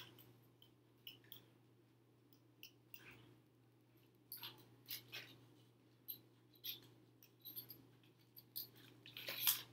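A small handheld stapler clicking staples through thin cereal-box cardboard, amid rustling of the cardboard as it is handled; a handful of scattered clicks, the loudest crunch near the end.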